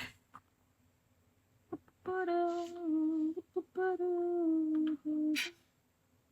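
A person humming a few long, held notes in three or four short phrases, starting about two seconds in.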